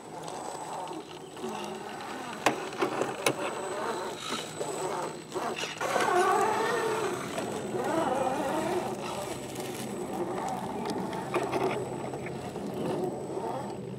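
Axial SCX10 II scale RC crawler's electric motor and gearbox whining, the pitch rising and falling with the throttle as it crawls over rocks, with a couple of sharp clicks of the tyres or chassis knocking on stone a few seconds in.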